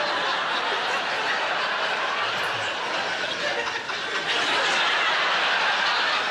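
Live audience laughing steadily, swelling a little in the last couple of seconds.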